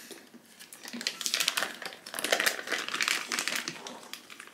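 Crinkling and rustling of something crinkly being handled, in irregular bursts, busiest from about one to three and a half seconds in.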